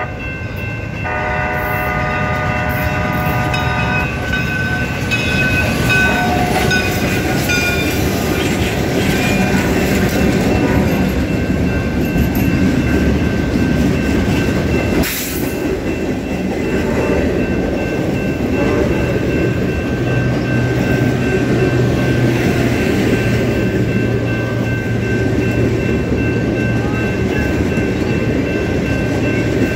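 Canadian Pacific 2816, a Hudson-type steam locomotive, blowing its chime whistle in a long blast that stops about four seconds in. Then the train rolls past close by: a steady heavy rumble of wheels on rail with a thin high wheel squeal, the locomotives, boxcars and passenger cars going by one after another.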